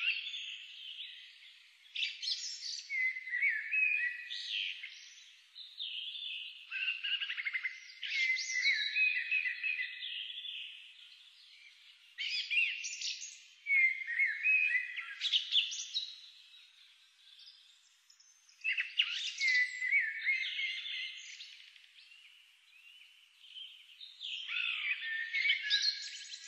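Songbird singing: high, quick warbling phrases a second or a few seconds long, repeated every few seconds.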